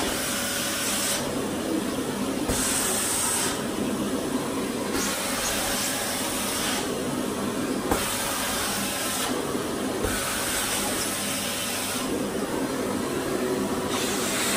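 Sauber canister vacuum cleaner running with a steady airflow hiss as its hose nozzle is drawn over a fabric curtain. The hiss brightens and dulls every second or two as the nozzle moves against the cloth.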